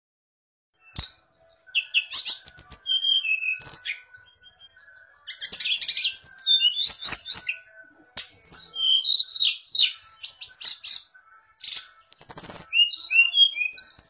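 A caged sulingan gunung songbird singing in four long, high-pitched runs of rapid twittering notes and slurred chirps, separated by short pauses. A few sharp clicks sound among the phrases.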